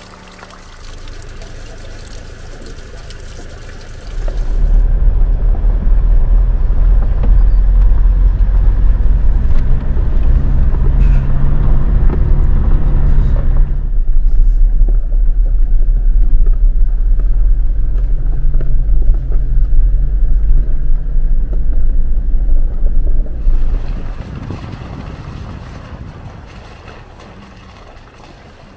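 Toyota Hilux driving on a gravel mountain track, heard from inside the cab: a loud, steady low rumble of engine and tyres that sets in about four seconds in and fades away near the end. Before it, water trickles from a fountain spout into a bottle.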